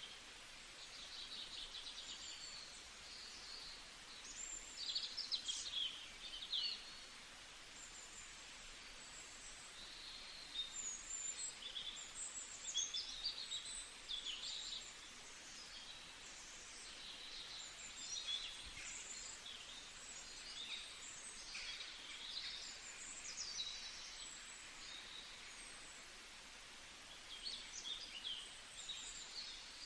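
Several songbirds chirping and singing in quick, overlapping phrases over a steady background hiss.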